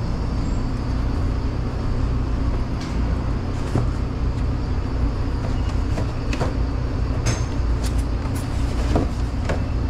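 Steady low hum of commercial pizza-kitchen machinery, with a scattering of short taps and clicks as a cardboard pizza box is handled and folded on the counter.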